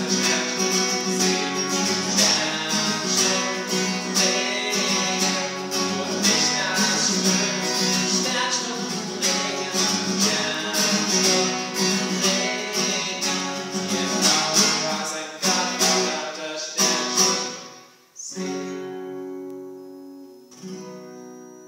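Acoustic guitar strummed in a steady rhythm, the song's closing bars: it breaks off, then a final chord is struck and left to ring out, with one last softer strum near the end.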